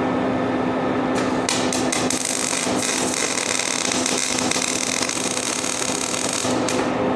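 MIG welding arc from an ESAB Migmaster 250 crackling steadily as a bead is run. It strikes about a second in and stops shortly before the end.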